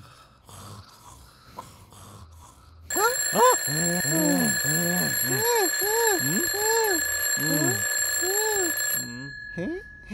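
Twin-bell alarm clock ringing loudly, starting about three seconds in and cutting off sharply about six seconds later. A repeated rising-and-falling whooping sound runs over the ringing.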